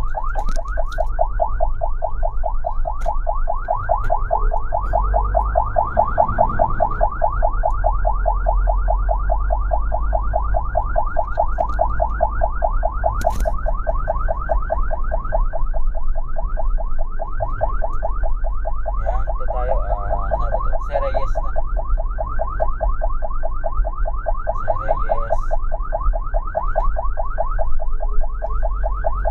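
Ambulance siren sounding in a fast yelp, about five quick rising sweeps a second, over a low steady rumble of the moving vehicle.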